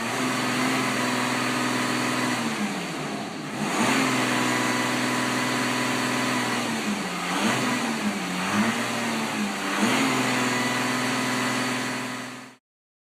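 Audi A6 4G engine sound played through retrofitted Active Sound exhaust actuators, running steadily with the pitch briefly changing about three seconds in and several times between seven and ten seconds in. It cuts off suddenly near the end.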